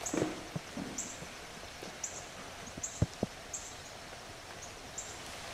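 Outdoor ambience: short high chirps repeating roughly once a second over a faint hiss, with a few dull thumps, the loudest about three seconds in.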